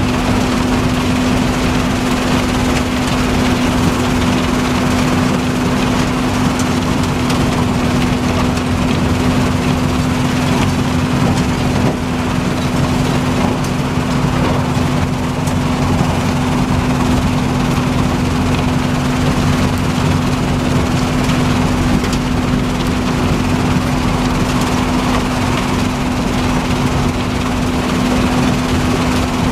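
RUBBLE MASTER RM 100GO! mobile impact crusher running under load, crushing asphalt through its screen. It makes a steady machine drone carrying one constant hum, under a dense wash of crushing and screening noise.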